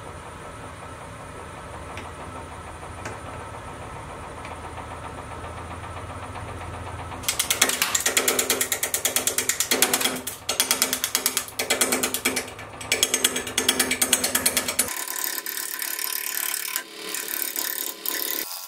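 Wood lathe running steadily with an out-of-round snakewood blank spinning between centres. About seven seconds in, a turning tool starts roughing the blank: a loud, fast, stuttering chatter as the edge strikes the uneven surface, stopping and starting several times. Near the end it gives way to a steadier, higher cutting hiss.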